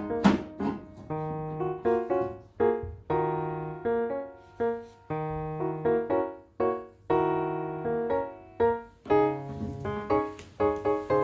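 Solo piano music: chords and melody notes struck and fading, changing every half second or so.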